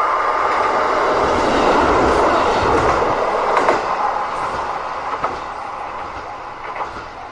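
A JR Kyūdai Main Line diesel train passing over a level crossing, its wheels clacking over the rail joints. It is loudest about two seconds in, then fades as it moves away.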